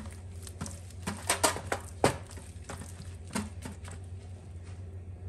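Irregular knocks, slaps and clicks of raw chicken leg pieces being handled and rubbed with spice marinade in a mixing bowl. The handling dies down about four seconds in, over a steady low hum.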